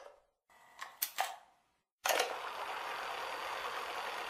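Two sharp mechanical clicks, then a third click about two seconds in, followed by a steady even hiss.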